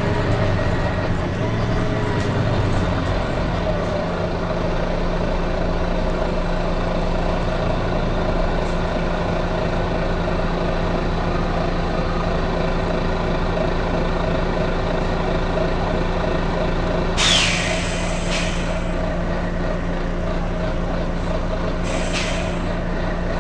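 Volvo B9TL bus's six-cylinder diesel engine running steadily, broken by short hisses of compressed air from its air system: a sharp hiss about 17 seconds in, a second one a moment later, and another near the end.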